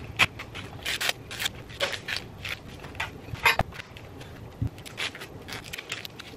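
Fresh ears of corn in their husks being handled and trimmed on a cutting board: irregular crackling and rustling of the dry husks, with a couple of dull knife knocks on the board.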